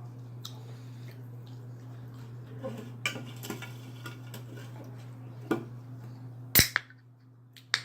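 Cutlery clinking against a plate during a meal, a few sharp clinks with the loudest about two-thirds of the way in, over soft eating noises. A steady low hum runs underneath and cuts off near the end.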